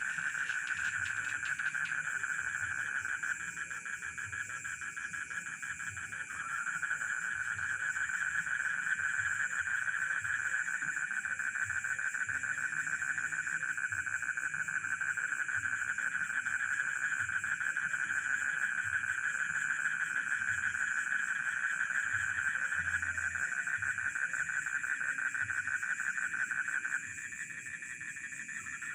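Dense chorus of rice-field frogs calling together with chirping crickets: a steady pulsing din. The loudest part of the chorus drops away briefly a few seconds in and again near the end.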